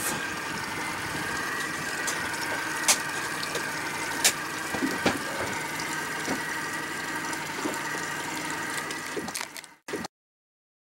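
A small boat's outboard motor running steadily underway, heard from on board over a steady hiss, with a few sharp knocks. The sound cuts off abruptly near the end.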